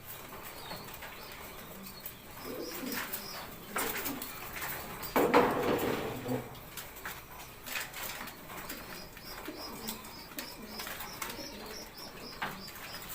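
Domestic pigeons cooing in the loft, with a loud flurry of wing flapping about five seconds in. Runs of thin, rapid high cheeps come through, mostly in the second half, as a squab is fed by its parent.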